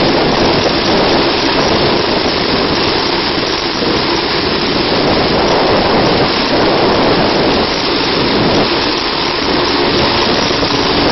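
Medical helicopter running on a rooftop helipad: its engine and turning rotor make a loud, steady rush.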